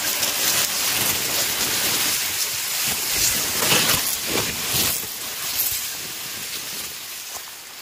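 Tall dry and green grass rustling and scraping against the phone as it is pushed through a dense clump, a loud crackling rustle. It is strongest about three to five seconds in, then dies down.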